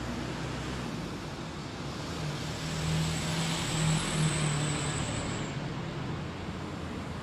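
A motor vehicle passing by: a steady engine hum and tyre noise that swell to a peak a few seconds in, then fade away.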